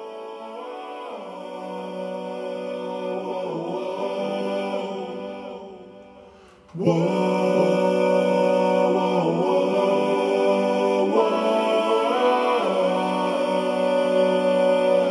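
Background music of choir-like singing in long held notes. It fades away about six seconds in, then starts again abruptly and louder a moment later.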